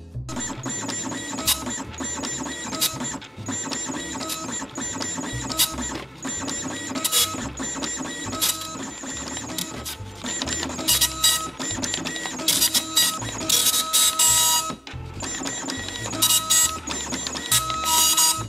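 Panasonic KX-P2123 24-pin color dot matrix printer printing a continuous-feed banner. The print head buzzes and rasps steadily as it works along the lines, with louder spells several times.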